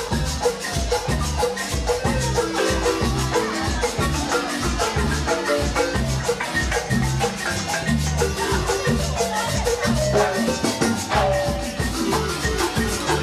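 Live marimba ensemble playing a fast dance tune: rapid, steady mallet strikes on the wooden bars over a repeating bass line, with a shaker keeping time.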